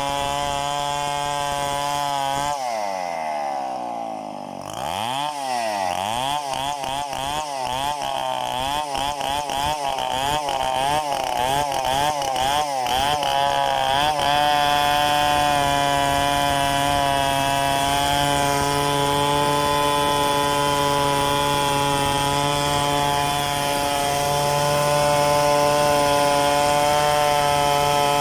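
Two-stroke chainsaw running at high revs, dropping back about two seconds in, then revved up and down in quick bursts for around ten seconds before settling into a steady high-rev run to the end, as it does while ripping a gmelina log into lumber.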